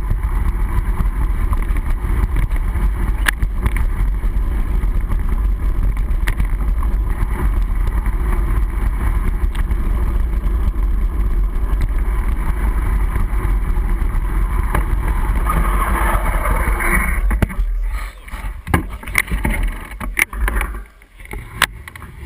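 Steady low rumble of wind buffeting and tyres on a gravel trail, picked up by a handlebar-mounted camera inside a waterproof housing as a mountain bike rides downhill. About three quarters of the way through the rumble falls away, and a few sharp knocks and rattles follow.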